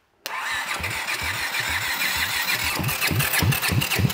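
Honda CX500 motorcycle's electric starter cranking the engine over without it catching: a rhythmic pulsing of about four to five beats a second with a starter whine above it, starting abruptly.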